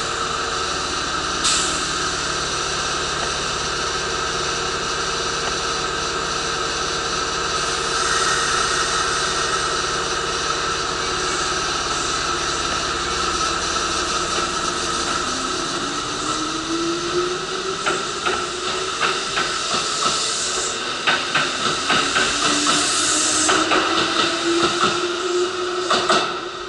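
Kintetsu Kashihara Line train running with a steady hiss of running noise. From about halfway a motor whine rises slowly in pitch while sharp clacks over the rail joints come thicker and faster, as the train picks up speed.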